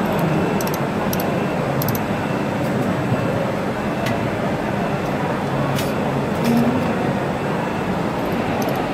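Steady hum of a 300-watt laser welding machine running, with about nine short sharp ticks scattered irregularly through it as laser pulses fire on stainless steel.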